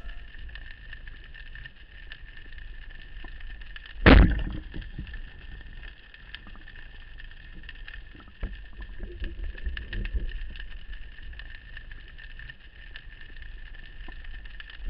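Underwater sound: a steady high whine over a low rumble, broken by two loud sharp thumps, one about four seconds in and one at the very end.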